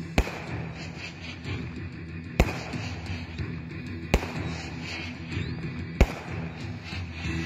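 Aerial fireworks bursting overhead: four sharp bangs about two seconds apart, over music playing throughout.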